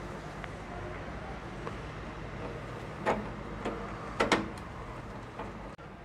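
Hand-fitting of a microwave oven's plastic door-release lever into its latch assembly: a few sharp plastic clicks and knocks about halfway through, including a close pair just after that, over a steady low hum.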